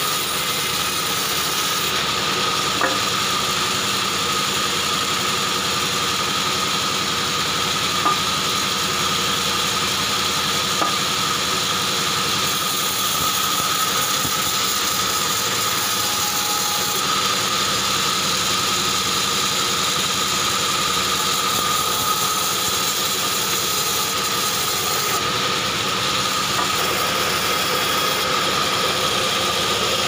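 Small band sawmill running steadily while it cuts short pieces of wood: a constant mechanical drone with a steady high whine, and a few light clicks as the wood is worked through.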